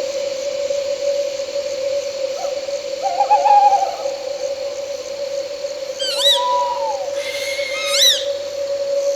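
Owl calling in a night forest over a steady drone and a faint high insect trill. A wavering call comes a few seconds in, then several short rising-and-falling chirps near the end.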